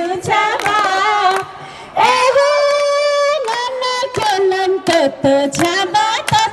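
A woman singing a song over music, with one long held note in the middle and sharp beats running through.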